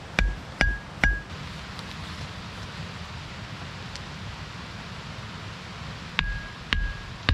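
Hard tool strikes, each a sharp knock with a short metallic ring. Three come about half a second apart in the first second; after a few seconds of steady hiss, another series starts near the end at the same pace.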